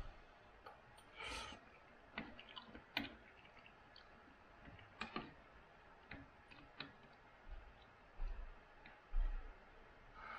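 Eating soup with a spoon: scattered light clicks of the spoon against the bowl, with a soft slurp-like burst about a second in and a few low bumps near the end.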